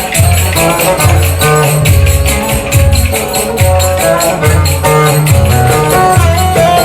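Instrumental break of Turkish folk music: dense, rapid jingling of zil over a steady repeating bass line and a melody line.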